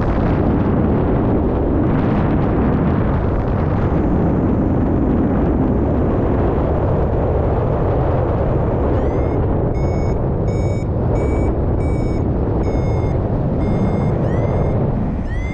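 Airflow rushing over the microphone in paragliding flight. About nine seconds in, a flight variometer starts beeping: short beeps, each sliding up in pitch as it starts, about two a second. This is the climb tone that signals the glider is rising in lift.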